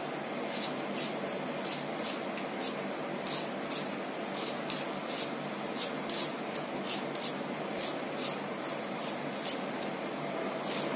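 Kitchen knife scraping the skin off a piece of ginger root: short rasping strokes, about two a second.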